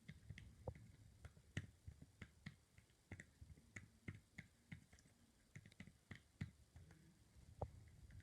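Faint, irregular light clicks and taps, about two or three a second, over near silence.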